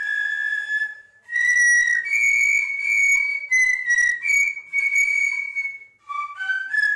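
A fife-and-drum corps' fifes playing a march melody in unison, with held and stepping notes. There is a short break a little after one second and another just before six seconds, between phrases.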